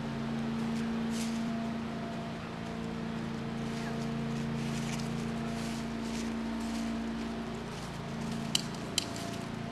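Footsteps crunching on a path strewn with dry fallen leaves, over a steady low hum that fades out near the end. Two sharp clicks sound near the end.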